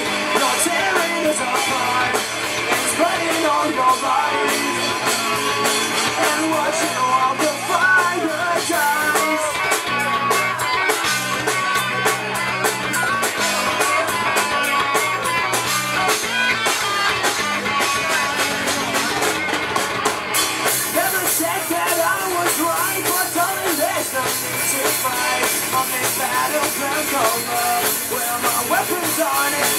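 Live rock band playing through a PA: electric guitars, bass guitar and a drum kit, with sung vocals. The high end gets brighter about two-thirds of the way in.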